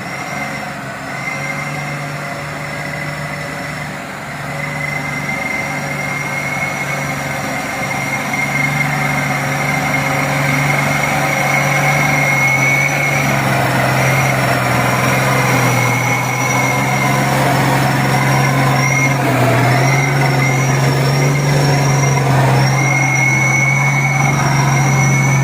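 Diesel engine of a heavily loaded coal dump truck running hard under load, a low steady drone with a thin high whine above it, growing louder as the truck comes closer.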